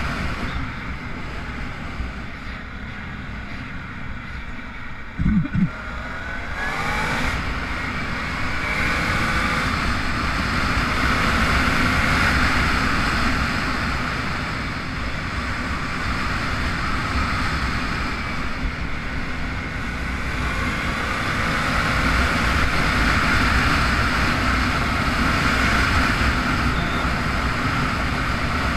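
Arctic Cat Big Bore 1000XT engine running under way, the pitch rising as it accelerates about seven seconds in and the note swelling and easing with the throttle, over heavy wind rumble on the microphone. A brief loud jolt about five seconds in.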